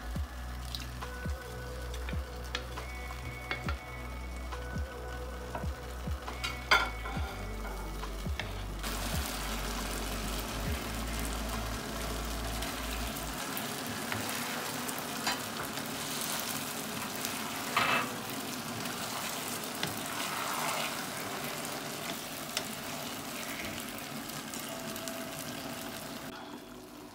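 Sauce sizzling and bubbling in a nonstick pan while a wooden spatula stirs in vegetables and battered fried chicken pieces, with a few sharp knocks of the spatula against the pan. The sizzling grows louder about nine seconds in and dies down just before the end.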